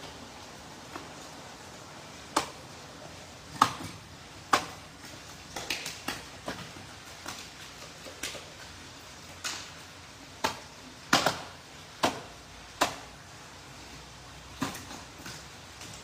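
Cleavers chopping and knocking fish on plastic cutting boards: a dozen or so sharp, irregular strikes, some in quick clusters.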